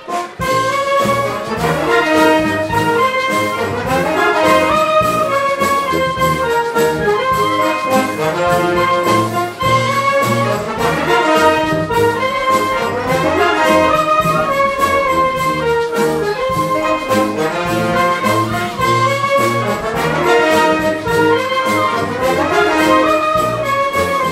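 Wind band of brass, woodwinds and percussion playing a medley of Portuguese popular hits live, with a steady percussion beat under the melody. A new passage starts right after a brief break at the very beginning.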